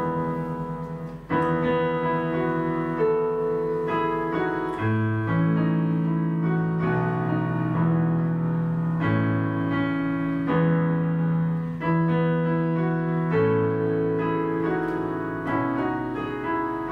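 Electronic keyboard playing a hymn tune in sustained chords, a new chord about every second or so, as the introduction before the congregation's singing.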